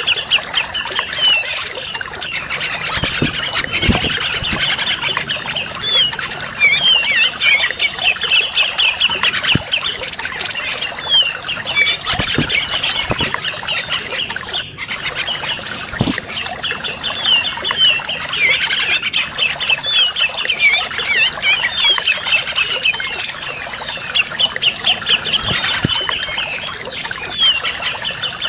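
Bird-trapping lure recording (audio pikat) made to draw in grey-cheeked bulbuls (cucak jenggot): many small birds chattering, with dense fast chirps and trills that go on without a break, over running water.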